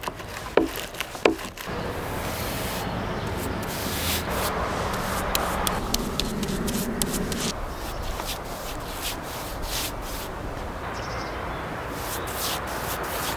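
Oak being worked with a steady rough scraping or rubbing, like sanding or rasping. It opens with two sharp knocks, and small clicks break in often during the second half.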